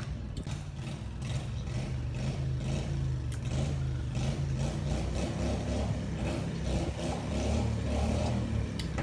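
An engine running steadily with a low hum, growing somewhat louder toward the end.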